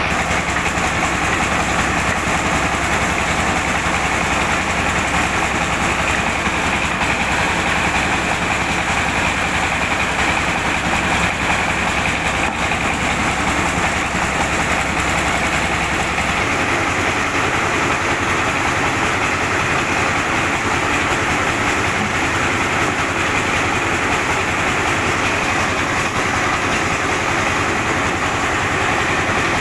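Diesel-powered mobile rice mill running steadily under load, a dense, unbroken mechanical din of engine and milling machinery as grain passes through. The deepest part of the rumble lessens about sixteen seconds in.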